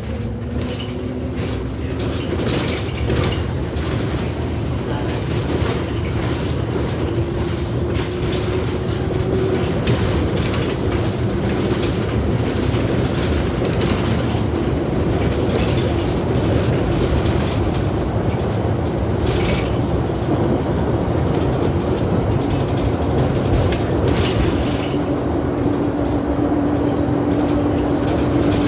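A bus in motion: engine and road noise with frequent rattles, the engine note rising in pitch several times as it accelerates, most clearly about a second in, around eight seconds in and near the end.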